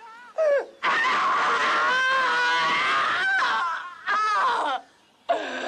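A woman screaming on a horror film's soundtrack: a short cry, then one long, high scream of about three seconds, then two more short screams.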